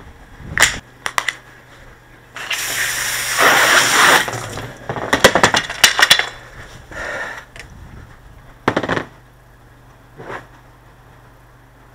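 Pressure washer jet spraying in short bursts, the longest about two seconds, with a quick run of sharp clicks and knocks about five seconds in. A low steady hum runs underneath.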